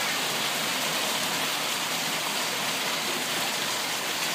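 Rain pouring down steadily, an even, unbroken hiss.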